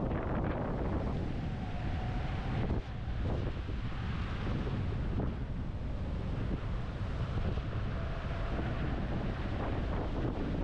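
Strong wind buffeting the microphone: a steady, heavy rumble.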